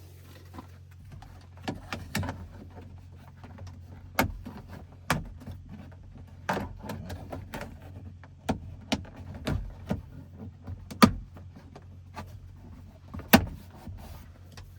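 Irregular sharp clicks and clanks of hand tools against metal and plastic door parts, from work on a pickup truck's door lock and handle. A faint steady low hum runs underneath.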